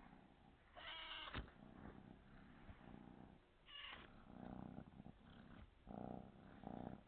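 Calico kitten purring softly in on-and-off stretches, with two short, high meows about one and four seconds in; the first meow is the loudest sound.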